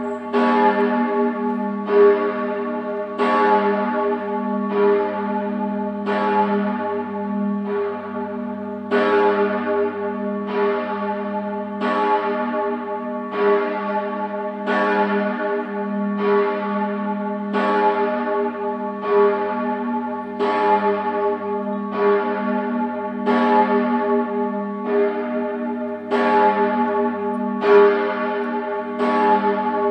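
A large swinging church bell, a 1957 Bochumer Verein cast-steel bell tuned to A-flat, ringing alone: its clapper strikes a little more than once a second, each stroke sounding into the next over a steady low hum.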